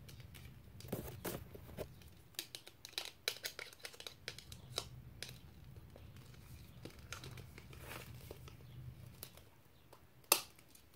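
Packaging being crinkled and torn open by hand: faint, irregular crackles and small clicks, with a sharper click near the end.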